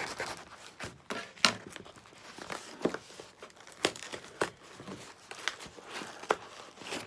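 A tape-sealed shipping package being forced and torn open by hand: crinkling and tearing, with about half a dozen sharp snaps.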